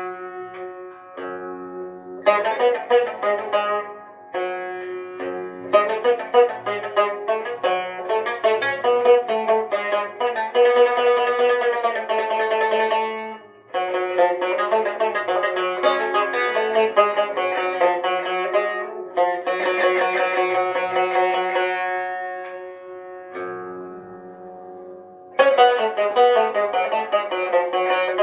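A solo plucked string instrument playing a melody in several phrases, its notes ringing and decaying, with short pauses between phrases.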